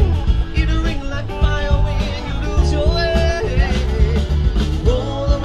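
Background music: an upbeat rock or country-style song with guitar, bass, a steady drum beat and a singing voice.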